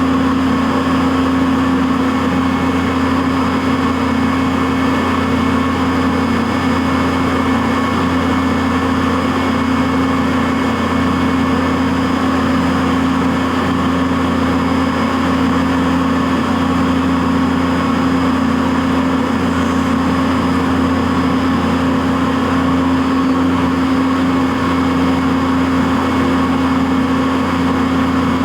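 CNC vertical milling machine running steadily, with an unchanging hum and spindle whine while it mills Delrin parts.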